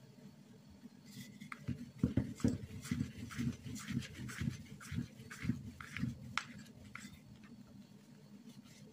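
Wooden rolling pin rolling back and forth over dough on a smooth worktop: a low rumble in rhythmic strokes, about two a second, with a few sharp clicks. It starts about a second and a half in and dies away near the end.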